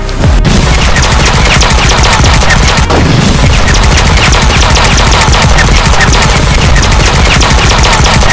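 Minigun sound effect: a multi-barrelled rotary machine gun firing a continuous stream of rapid shots, starting abruptly a moment in and keeping up without a break.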